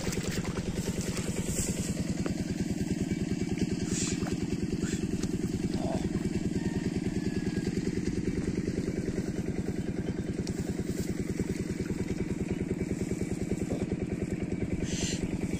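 A small engine running steadily at an even, rapid beat, unchanging in speed, with a few brief faint higher sounds on top.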